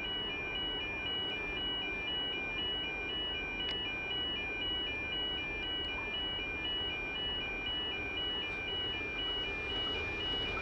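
Electronic warning signal beeping steadily, alternating between two high tones about twice a second, over the low rumble of an approaching freight train that grows a little near the end.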